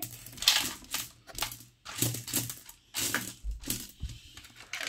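Pebbles clacking against one another as a hand rummages through a tray of stones, in an irregular run of sharp clicks, several a second.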